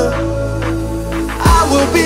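Electronic background music with a steady bass line and held synth notes. About one and a half seconds in, a sweep falls steeply in pitch before the bass comes back in.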